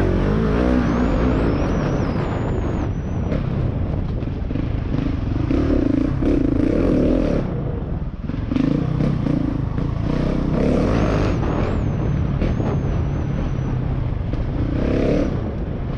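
Husqvarna 701 Enduro's single-cylinder four-stroke engine running hard off-road, the revs rising and falling repeatedly as the throttle is opened and closed.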